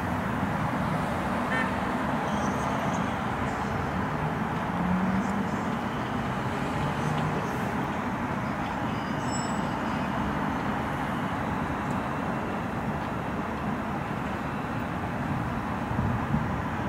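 Steady rumble of an R142 subway train approaching on an elevated steel line, its wheels running on the rails, getting slightly louder near the end.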